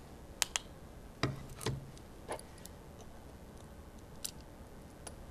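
Faint, irregular clicks and taps of a small screwdriver and a camera lens barrel being handled while a tiny screw is worked out of the barrel, about six sharp clicks in all.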